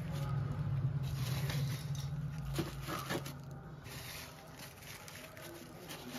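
Plastic-bagged circuit boards crinkling and rustling as they are pressed and shuffled into a cardboard box, with a few sharp clicks. A low steady hum runs underneath and stops about four seconds in.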